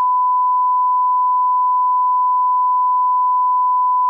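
Steady 1 kHz test tone, one pure unchanging pitch, cutting off abruptly near the end: the reference line-up tone placed at the head of a broadcast programme tape.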